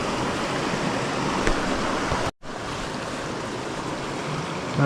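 Steady rush of a mountain stream flowing over rocks, with a brief cut to silence about two seconds in.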